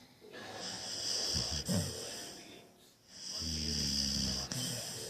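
Pit bull snoring in its sleep: two snoring breaths, each with a hiss, the second a low, steady rumble about three seconds in.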